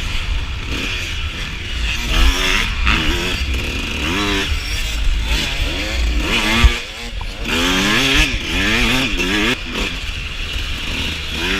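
Suzuki RM125 two-stroke dirt bike engine revving up and down over and over under riding, its pitch climbing and dropping every second or so. Wind rumble sits on the microphone underneath, and there is a single sharp knock a little past the middle.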